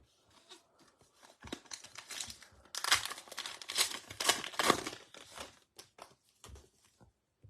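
A foil trading-card pack wrapper being torn open and crinkled by hand. The dense crackling builds up about a second and a half in, is loudest in the middle, then thins to a few light crinkles and clicks.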